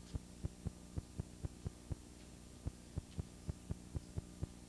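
Steady electrical hum with regular low thumps about four times a second, a constant interference in the recording's audio.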